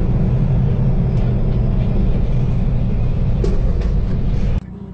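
Loud, steady low rumble of a moving vehicle, with a few faint clicks about three and a half seconds in. It cuts off abruptly near the end.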